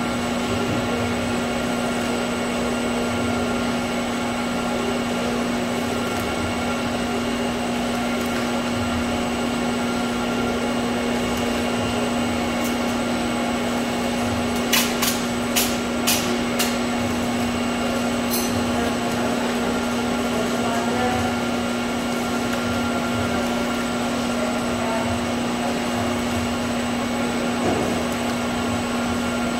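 Automatic bottle labeling machine and its conveyor running: a steady motor hum with one strong low tone and fainter high whines. A handful of sharp clicks come about halfway through.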